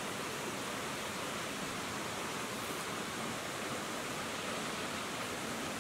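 Shallow stream of water running steadily along an overgrown path.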